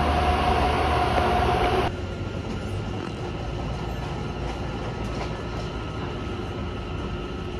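Steady rumble and hum of idling diesel commuter-train locomotives at the station, cut off abruptly about two seconds in. A quieter steady background hum follows.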